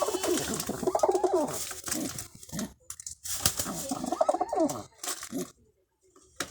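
Domestic pigeon cooing in two bouts of low, wavering coos, with sharp clicks among them, then falling quiet.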